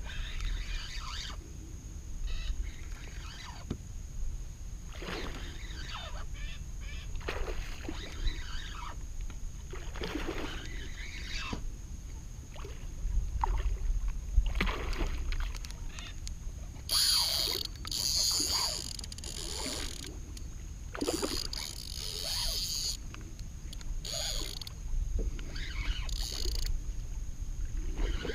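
Topwater lure being worked across calm water in short pulls: irregular splashes and gurgles every second or two, with louder, hissier bursts in the second half. Wind rumbles on the microphone throughout.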